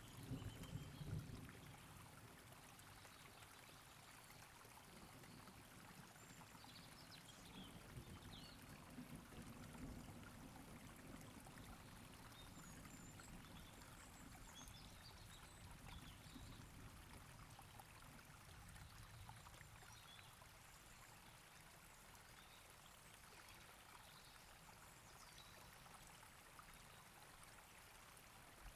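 Near silence: a faint steady hiss with a few faint, high, short chirps scattered through it.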